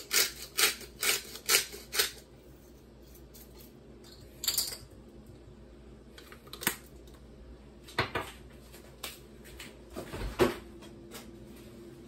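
Quick clicks from a hand-twisted spice grinder seasoning a pan, about two a second for the first two seconds, then a few scattered light knocks of kitchenware, the loudest a little before the end.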